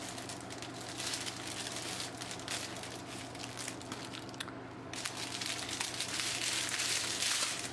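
Clear plastic packaging crinkling and crackling as a bag of diamond painting drills is handled and worked open, with a short lull about halfway through.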